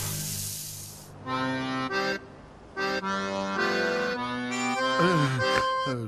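Accordion music playing a tune in held chords and notes. A hiss-like rush fades out over the first second.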